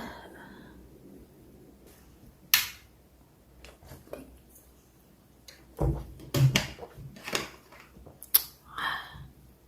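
Scattered clicks and knocks of objects being handled in a small room: one sharp click about two and a half seconds in, then a cluster of knocks and taps in the last few seconds.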